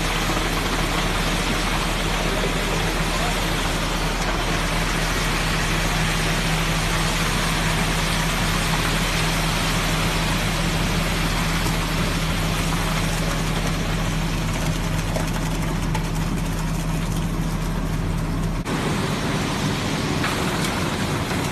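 Steady mechanical running noise with a constant low hum, which changes abruptly near the end as the hum cuts out.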